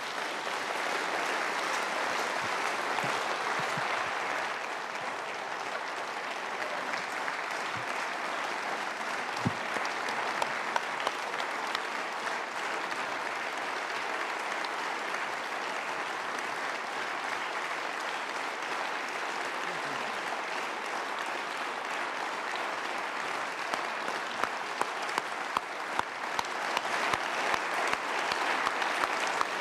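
Large audience applauding, long and sustained. Near the end the clapping falls into a steady, in-unison beat of about two claps a second.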